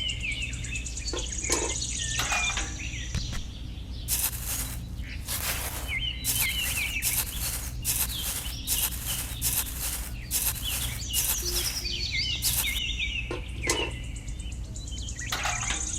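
Birds chirping in short repeated calls over a steady low hum, with a run of short rough bursts of noise through the middle.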